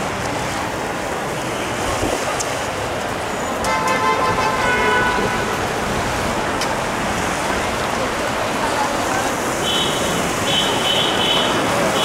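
A Ferrara aerial ladder fire truck's air horn sounds one blast about four seconds in, lasting about a second and a half, over steady street and engine noise. Near the end a high-pitched beeping starts in short repeated pulses.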